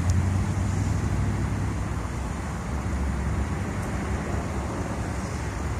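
Steady urban background rumble of city traffic, with a low continuous hum and no distinct events.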